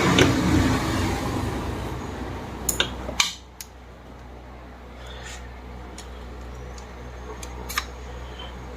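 Sharp metal clicks and clinks of a bearing puller being hooked onto a ceiling fan's worn bearing, a handful of single ticks a second or so apart. A rumbling noise fades out over the first three seconds.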